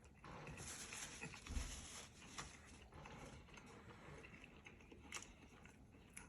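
Faint chewing of a mouthful of nacho fries, with a few small clicks.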